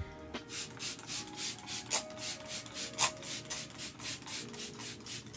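Small pump spray bottle of face primer mist being sprayed at the face, a rapid run of short hissing spritzes, about five a second, starting about half a second in.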